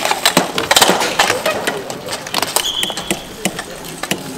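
Hardcourt bike polo play: a dense run of sharp knocks and clacks from mallets striking the ball, each other and the rink's side boards as players jostle. A brief high squeal comes about halfway through.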